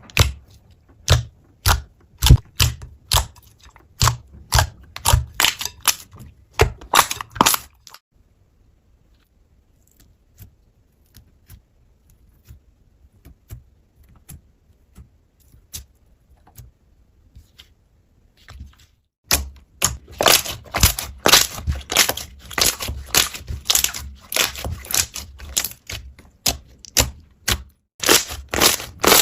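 Slime being pressed and squished, giving sharp crackling pops and clicks. A quick run of them for the first several seconds, then only faint scattered ticks for about ten seconds, then dense crackling again.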